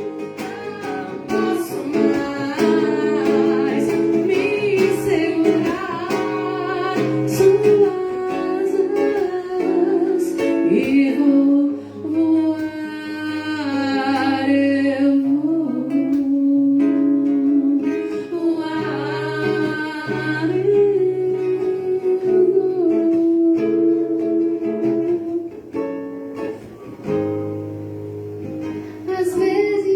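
A voice singing a song, accompanied by a strummed and plucked acoustic guitar with its low bass notes changing every second or two.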